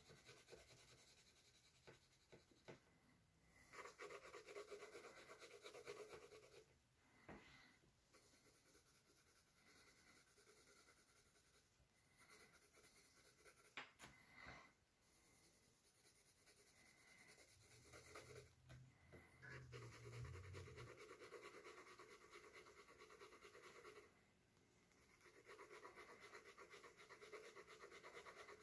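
Colored pencil shading on sketchbook paper: faint, rapid back-and-forth scratching in several stretches, with a few light taps in between.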